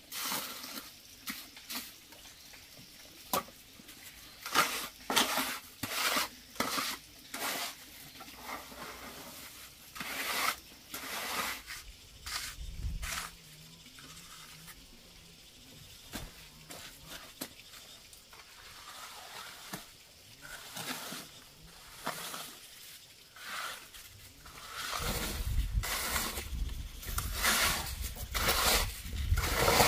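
Trowel and hand float scraping and smoothing wet concrete, in short irregular strokes that come in clusters of several a second.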